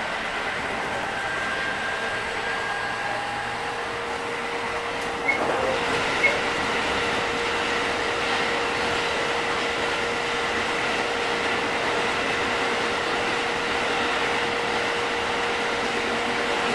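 Running sound inside a JR 205 series 5000-subseries electric train: wheels rumbling on the rail under a steady hum from the Toyo IGBT VVVF inverter and traction motors. A couple of sharp clicks come about five seconds in, after which the running noise is a little louder.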